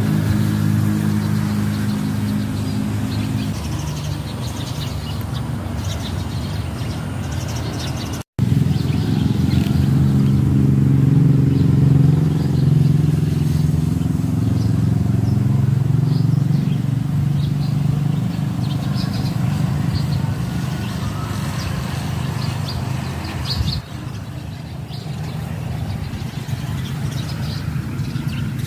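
An engine running steadily, its pitch drifting slowly; the sound breaks off for an instant about eight seconds in, comes back louder and eases off after about twenty-four seconds. Birds chirp faintly over it.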